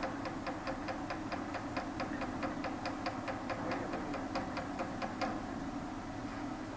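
A rapid, even run of mechanical clicks, about five a second, that stops about five seconds in, over a steady low hum.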